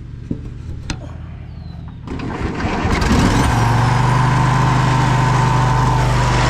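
Briggs & Stratton 22 hp V-twin riding-mower engine being spun over with a drill because its starter only clicks. After a couple of clicks it cranks, catches about three seconds in, and settles into a steady run.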